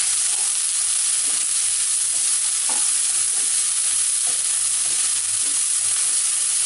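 Chopped onion, green chilli, garlic and ginger sizzling steadily in hot oil in a nonstick pan. A plastic slotted spatula stirs them, scraping across the pan a few times.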